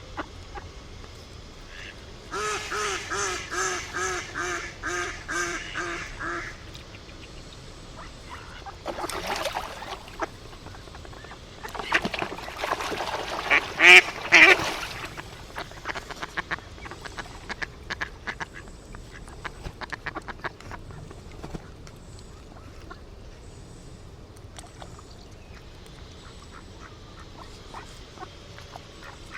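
Ducks quacking: a run of about a dozen quacks starting about two seconds in, more calls a few seconds later, and a louder burst of quacking around the middle.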